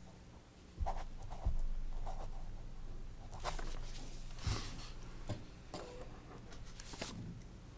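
Paper rustling and a pen writing on paper at a meeting table, with scattered knocks and handling noises picked up by the table microphones, over a steady low electrical hum.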